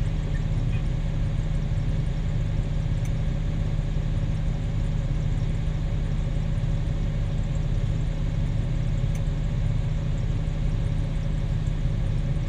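Heavy diesel engines of a Cat 6020B hydraulic mining shovel and a Cat 777E haul truck running during loading: a deep, even drone with a steady hum above it.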